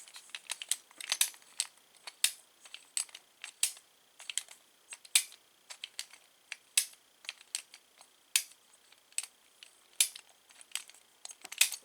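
Small metal door-knob parts of a Schlage keyed knob clicking and clacking as they are handled and fitted together: many short, sharp clicks at an uneven pace, a few a second.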